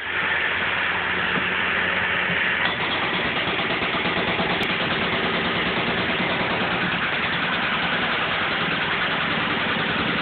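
Hydraulic breaker on an excavator arm hammering its chisel point into a concrete patio slab in quick, continuous blows, over the excavator's running engine.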